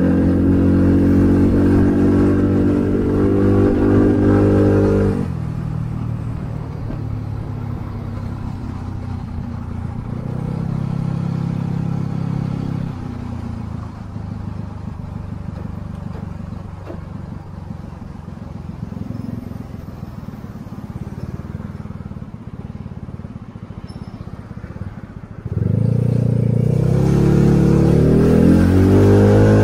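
Small Yamaha motorcycle's engine running under throttle, then dropping suddenly to a quieter low idle about five seconds in as the rider eases off and rolls slowly in traffic. Near the end the throttle opens again and the engine note rises as the bike accelerates.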